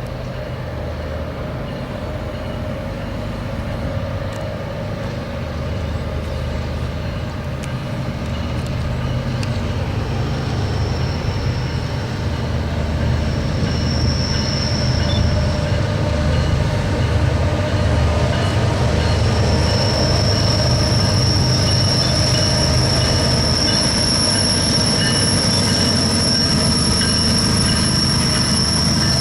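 Double-stack freight train rolling past, a steady low rumble of the railcars that slowly grows louder. A high-pitched wheel squeal sounds briefly twice around the middle, then holds steady through the last third.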